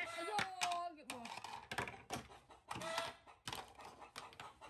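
Plastic toys clacking and knocking on a wooden tabletop in a string of quick, irregular taps. A short high-pitched voice is heard at the start and briefly again about three seconds in.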